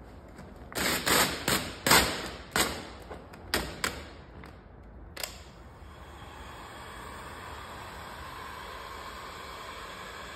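Vinyl wrap film pulled back off a car door panel, crackling and snapping in a quick run of sharp cracks over about four seconds. About six seconds in, an electric heat gun starts with a steady blowing hiss that runs on.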